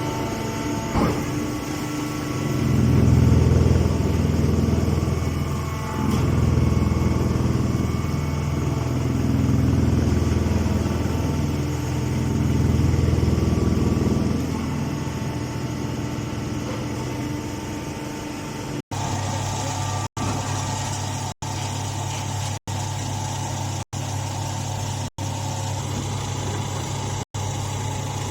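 Straw baler machinery and its engine running steadily, swelling louder several times in the first half. Later the sound is cut by short gaps about once every second and a quarter.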